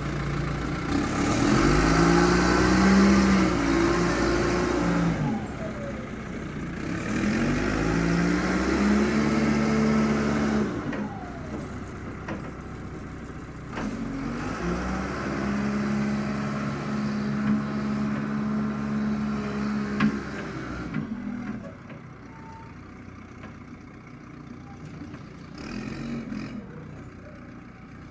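John Deere 310 backhoe loader's diesel engine revving up three times as it works the sand, each time holding high and then dropping back, and running lower and quieter near the end.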